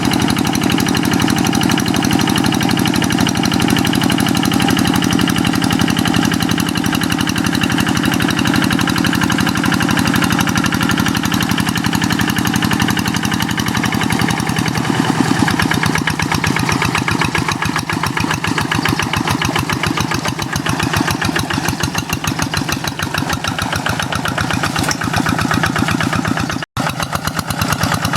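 Kubota single-cylinder diesel hand-tractor engine running steadily with a fast, even knock of firing strokes. About halfway through its note changes, and it cuts out for an instant near the end.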